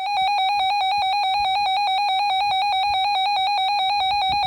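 Weather alert radio's built-in alarm sounding: a loud, shrill electronic tone with a rapid, even warble, signalling that a new warning has been received.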